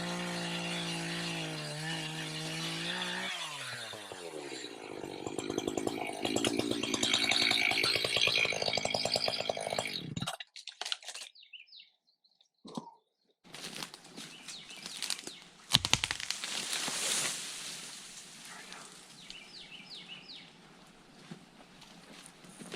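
Two-stroke Echo chainsaw running steadily, then dropping in pitch and cutting through wood. It stops abruptly about ten seconds in. After a short pause there is a spell of crackling and rustling, with a loud thump about sixteen seconds in.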